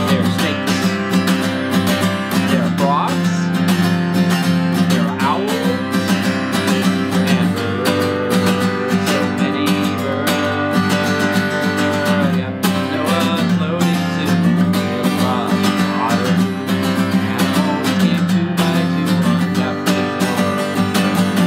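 Acoustic guitar strummed in a steady rhythm, chords ringing on continuously.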